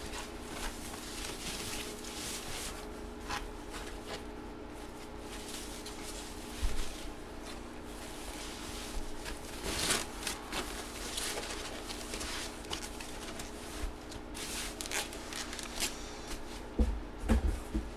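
Soft rustling, rubbing and light taps of trading cards and their packaging being handled, over a steady electrical hum.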